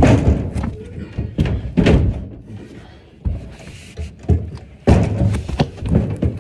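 Heavy wooden dresser being carried on carpeted stairs: a run of loud thuds and knocks, about five bumps spread over a few seconds.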